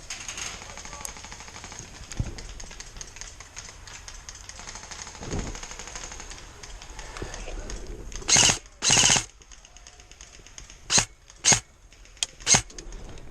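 Airsoft guns firing bursts of rapid fire. There are two half-second bursts about eight seconds in, then several short bursts near the end.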